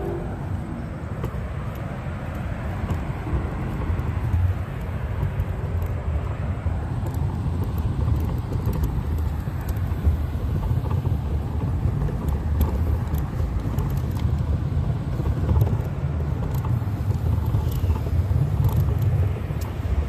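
Low, unsteady rumble of a wheelchair rolling fast downhill over a concrete path, its wheels on the pavement mixed with wind on the microphone.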